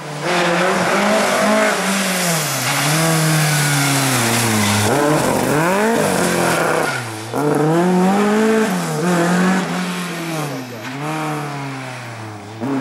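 Ford Escort Mk2 historic rally car's engine revving hard through a corner. Its pitch climbs and drops several times as the throttle comes on and off, dips deeply about seven seconds in, then pulls away again.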